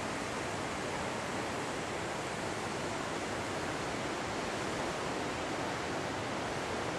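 Steady, even rushing noise with no distinct events, like outdoor wind or distant surf.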